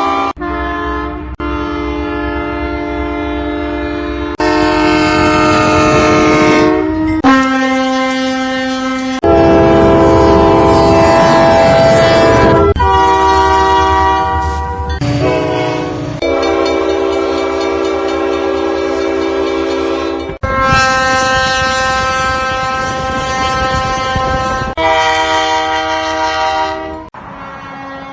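Train air horns blowing long, loud chords, one horn cutting abruptly to another every two to four seconds, each with a different pitch and chord.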